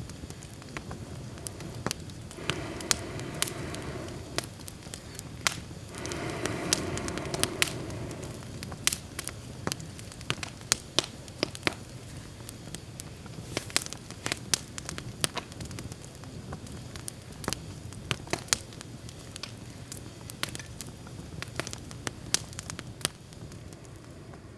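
Wood campfire crackling, with sharp pops several times a second over a steady low rush of burning. Twice, about three and seven seconds in, a louder rushing sound swells for a second or two.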